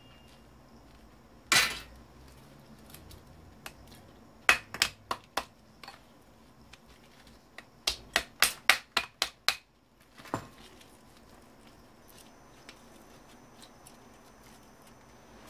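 Hand hammer striking parts of an old computer monitor being stripped for scrap: one hard blow, a handful of separate blows a few seconds later, then a quick run of about eight strikes and one last strike.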